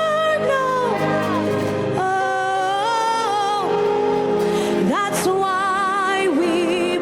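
Gospel worship singing: a solo voice holding long notes with vibrato and sliding up and down between them, over a sustained accompaniment.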